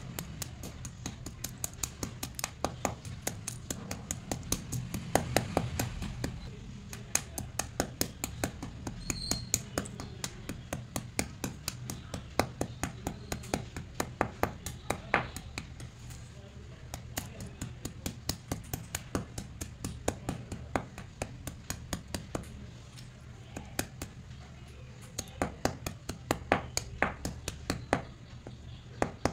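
White slate pencils cracking and snapping as a round grey stone pounder crushes them, a steady run of sharp clicks and crunches about three a second, over a low hum.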